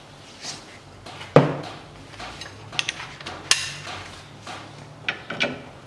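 Scattered metallic clinks and knocks of steel hand tools being handled and set down, the loudest a little over a second in, with a short ring after it.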